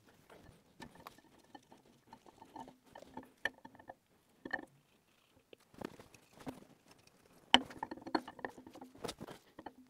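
Steel camshaft being slid into a Triumph TR4 engine block: faint, scattered clicks, taps and rubbing squeaks as the cam lobes and journals knock lightly against the block and bearings. The sounds come thicker and a little louder near the end.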